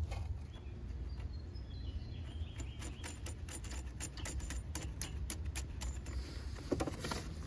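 Irregular light metal clicks and ticks as a conduit lock nut is worked loose with a lock nut wrench and the flexible conduit fitting is pulled free of an AC condenser's electrical box, coming thick and fast from a few seconds in, over a low handling rumble.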